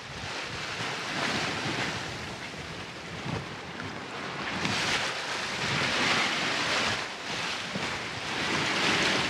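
Sea water rushing and breaking along the hull of a sailing catamaran under way, with wind buffeting the microphone. The rush swells and eases in surges as waves pass.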